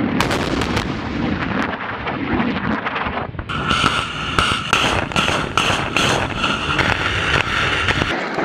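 Truck-mounted multiple rocket launcher firing a salvo, heard close up: rockets leave the tubes one after another, about two reports a second, over a rushing roar, from about three and a half seconds in. Before that, a dense crackle of rapid sharp reports over a rumble.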